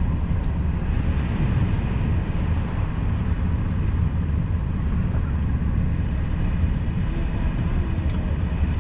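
Steady low rumble of a TGV Duplex high-speed train running, heard inside the passenger car.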